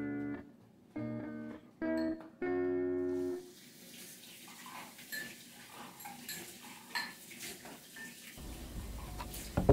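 Guitar music for the first three and a half seconds, then a kitchen tap running while glasses and dishes are washed in the sink, with light clinks and a sharp knock at the very end.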